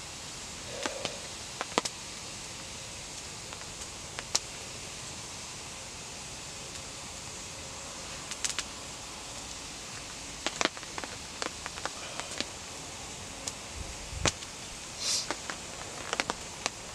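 Steady hiss of rain on a tarp shelter, with sharp ticks and crackles every second or so. A short hiss comes near the end.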